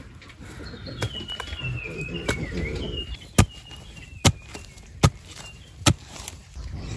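Long metal digging bar jabbed into hard soil to loosen a post hole: four sharp strikes, each a little under a second apart, in the second half, with a couple of fainter jabs before them.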